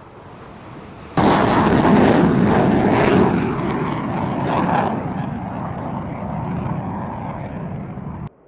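F-15E Strike Eagle's twin turbofan engines during takeoff: loud jet noise that cuts in suddenly about a second in, then slowly fades and stops abruptly just before the end.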